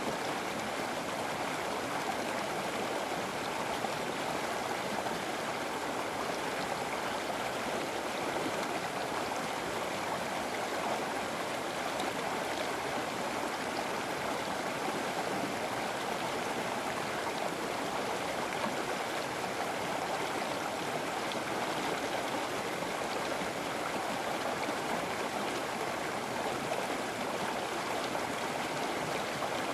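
River water flowing steadily over rocks, a continuous rushing babble with no change in level.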